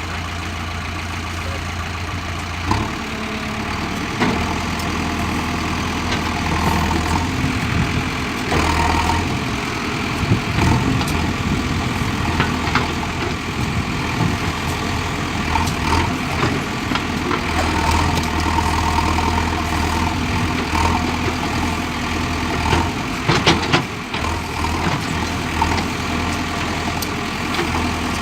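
JCB 3DX backhoe loader's diesel engine running steadily under work, with occasional knocks and clanks, a cluster of them near the end.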